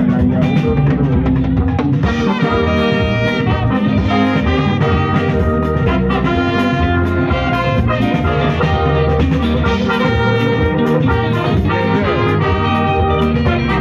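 Band music with a horn section of trumpets and saxophones playing held phrases over bass guitar and drums.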